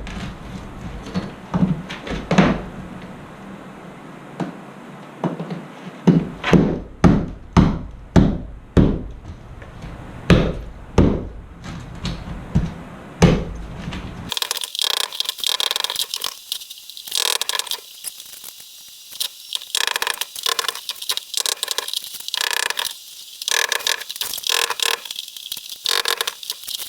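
Claw hammer striking and chipping at cement backer board and mortar to dig out roofing nails: irregular sharp knocks, at times several a second. About halfway through, the sound abruptly turns thin and choppy.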